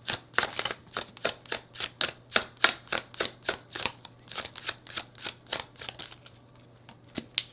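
A deck of tarot cards being shuffled by hand, a quick run of card snaps and flicks about four or five a second that dies away about six seconds in, with a couple of lone taps near the end.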